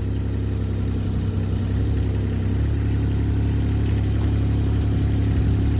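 Excavator's diesel engine running steadily while its hydraulics work the bucket and thumb, getting a little louder toward the end, with a faint high whine in the first couple of seconds.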